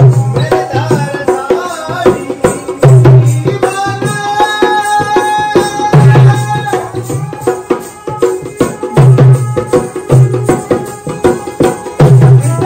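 Rajasthani folk music: a hand drum beats a repeating pattern under a sustained, wavering melody line. The music cuts off sharply right at the end.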